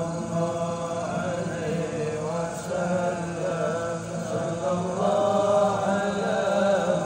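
A group of men chanting Arabic sholawat (devotional praise of the Prophet) together, one continuous melodic chant whose held notes rise and fall.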